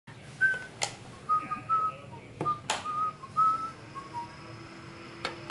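A person whistling a tune of short notes, broken by a few sharp clicks. A faint steady hum sets in about three and a half seconds in.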